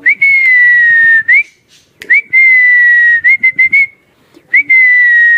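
A man whistling to call pigeons down onto his hand: three long high whistles, each opening with a quick upward flick and then held on one slightly falling note for more than a second, the second ending in a few short chirps.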